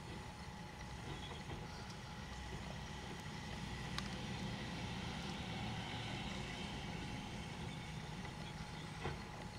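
McNeilus rear-loader garbage truck running, getting louder over the first few seconds as its hydraulic cart tipper lifts a wheeled cart and tips it into the hopper. A sharp click about four seconds in and a knock near the end.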